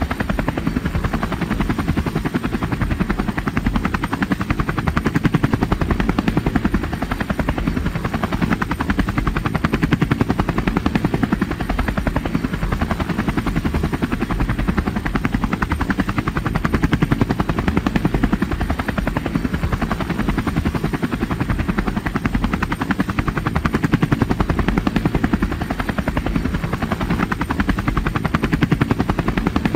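Steady rotor noise of a multirotor drone in flight: an even, rapidly pulsing drone, strongest in the low range, that holds unchanged throughout.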